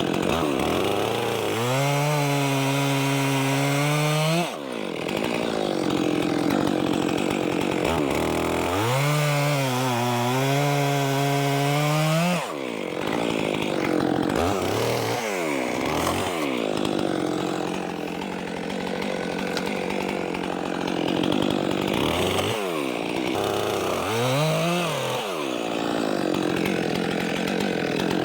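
Stihl 400c two-stroke chainsaw bucking logs: the engine runs at high revs, its pitch sags as the chain bites into the wood, and it drops sharply twice when a cut goes through. It then revs up and down through a series of shorter cuts.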